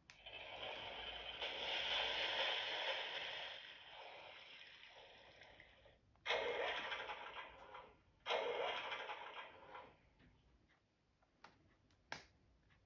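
Recorded splash sound played from a children's sound board book's small speaker: a rushing splash that fades over about five seconds. It is followed by the book's tractor sound played twice, two seconds apart: a short recorded 'sputter, futt' of a tractor engine that won't start.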